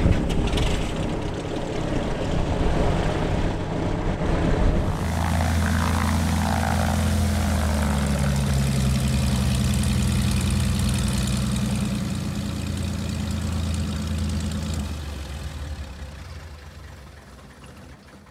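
Britten-Norman Islander's twin piston engines idling, propellers turning, just after start-up. About five seconds in the sound becomes a steadier, deeper drone with a brief drop in pitch soon after, and it fades away over the last few seconds.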